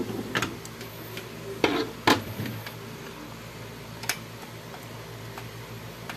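Plastic clicks and knocks from a laser-printer drum unit being handled and fitted together: about five sharp clicks in the first four seconds, then quiet handling.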